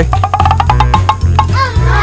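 Upbeat background music with a steady bass beat and a fast run of short repeated notes.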